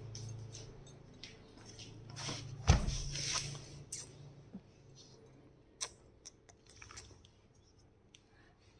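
Scattered light clicks and scuffs of a golden retriever puppy moving and playing on a tile floor, with one loud bump about three seconds in.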